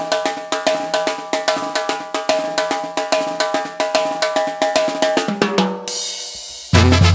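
Band music led by fast, steady drumming over a held note. The drumming stops shortly before the end, and a full band with heavy bass comes in loudly just before the close.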